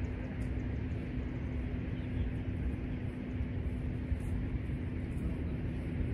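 Steady low outdoor rumble with a constant low hum running under it.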